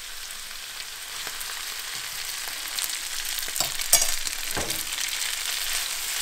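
Chopped vegetables sautéing in olive oil in a cast-iron skillet, sizzling as cooked linguine is tipped in and stirred, the hiss swelling from about a second in. Short knocks and scrapes of a metal slotted spatula against the pan join in midway, the loudest about four seconds in.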